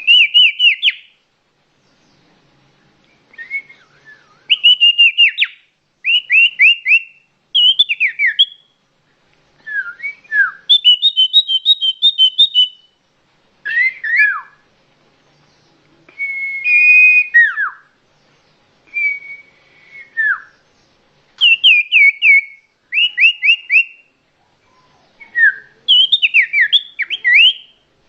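A songbird singing short phrases of rapid, repeated notes that slide down in pitch, with brief pauses between phrases.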